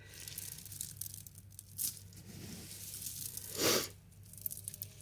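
Crinkly rustling of a feed bag being handled, with a louder swish about three and a half seconds in.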